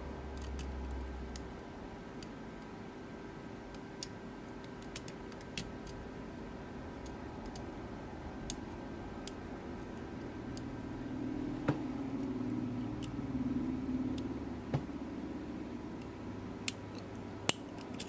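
Scattered faint metallic clicks and ticks of a dimple pick working the pin-in-pin stack of a Mul-T-Lock C-13 padlock under a tension bar, over a faint steady hum; one sharper click near the end.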